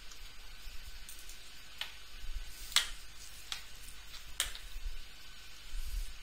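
Computer keyboard keys clicking, about four separate keystrokes a second or so apart in the middle of the stretch, over a faint low hum.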